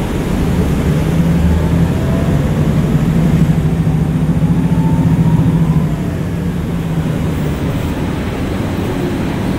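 RTS transit bus's diesel engine and drivetrain heard from inside the empty cabin while the bus drives, pulling harder from about a second in and easing off around six seconds in, with a faint whine rising over it in the middle.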